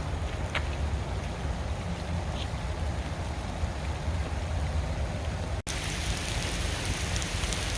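Steady rain falling, a continuous hiss with a low rumble beneath it. The sound cuts out for an instant about three-quarters through, and the hiss is brighter after it.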